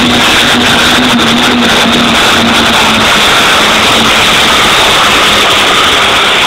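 Super modified pulling tractor's engines running at full power under load as it drags the weight-transfer sled, a loud, steady noise that stays level throughout.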